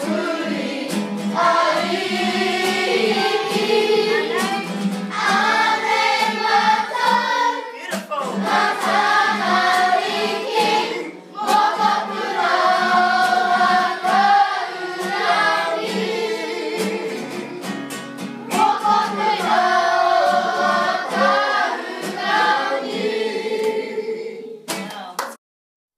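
A choir singing the school song in te reo Māori, phrase after phrase, cutting off abruptly about a second before the end.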